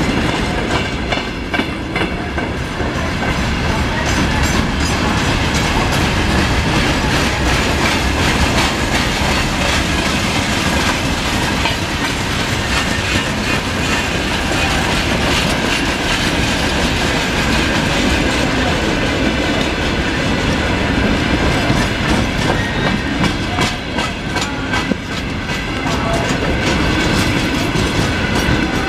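Freight train's wagons rolling steadily past at close range: a continuous rumble with the wheels clattering over rail joints in an unbroken run of clicks.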